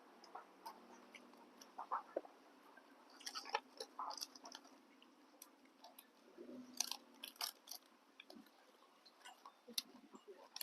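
A person eating boat noodles close to the microphone: chewing and mouth noises with scattered light clicks and taps.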